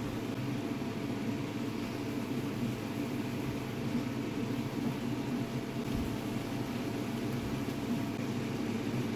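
Steady whirring hum of a kitchen fan, such as a range hood, running at an even level.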